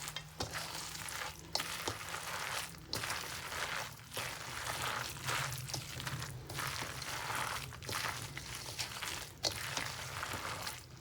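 Wet grated-potato latke batter being mixed in a bowl, a steady squishing, scraping noise that breaks off briefly about once every second or so as the strokes repeat.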